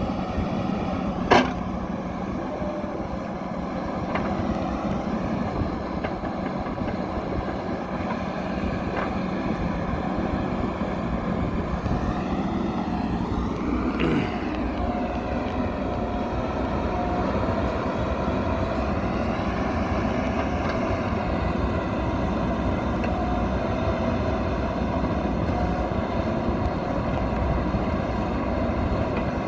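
JCB backhoe loader's diesel engine running steadily as the machine works, with a sharp knock about a second in and a softer thump around the middle.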